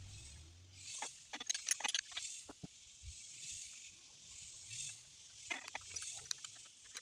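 Bursts of sharp metallic clicks and clinks from a ratchet and wrenches working intake manifold bolts, in two clusters, about a second in and again near the end. Behind them runs a steady high chirring of insects.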